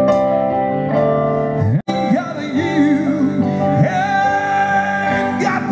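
Live band played through an all-Ashley PA system: a held chord on keyboard and guitars, then the sound drops out for an instant about two seconds in. After that a male singer sings a wavering melody over the band.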